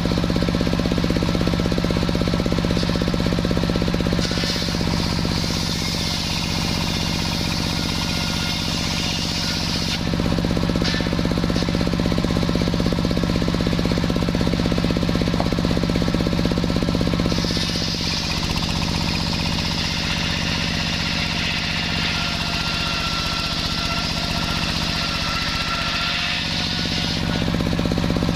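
Sawmill saw running with a steady engine drone, cutting through a waru log twice: from about four seconds in to ten, and again from about seventeen to twenty-seven, each cut adding a higher hissing whine over the drone.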